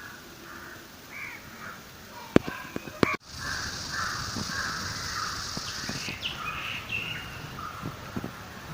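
Crows cawing repeatedly among other birds. Two sharp clicks come a little over two and three seconds in, the loudest sounds here, followed by a steady high hiss for about three seconds.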